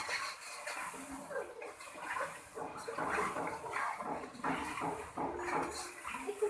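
Minced meat and tomato masala frying in a pan, sizzling and bubbling as it is cooked down to let the oil separate, with one metal spatula clink against the pan at the very start.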